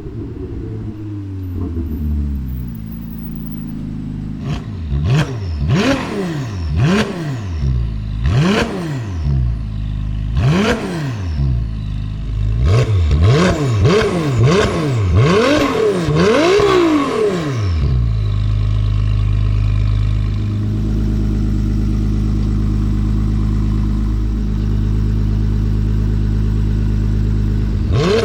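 Ferrari 296 GTS twin-turbo V6 through a full Capristo exhaust, revved in a quick run of about a dozen short rises and falls in pitch, then holding a steady note for the last ten seconds before climbing again at the very end.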